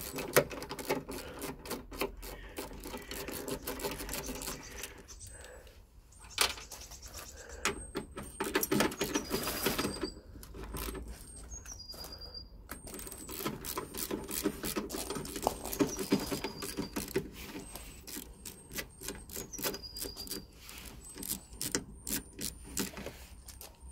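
Ratchet with a 10 mm socket clicking in quick runs as the headlight mounting bolts are undone, with light metallic tool clatter.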